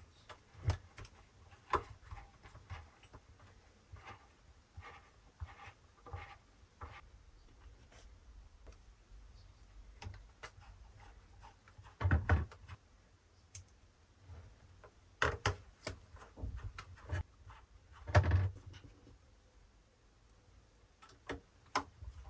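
Screwdriver work inside an opened Glitter 811H spot welder, fastening a wire's lug to a terminal. Scattered small clicks and rattles of the tool and the metal parts, with three louder knocks in the second half.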